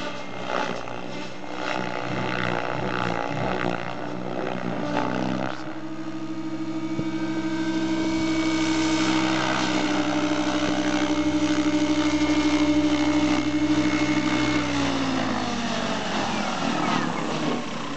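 Electric SAB Goblin 700 RC helicopter, driven by an Align 750MX brushless motor: the rotor and motor sound surges and varies in aerobatic flight. After about five seconds it settles into a steady whine and rotor hum. Near the end the whine falls in pitch as the rotor spools down on the ground.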